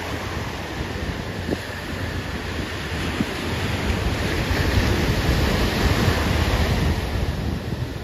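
Wind buffeting the microphone over the steady wash of ocean surf, the hiss of the surf swelling between about four and seven seconds in.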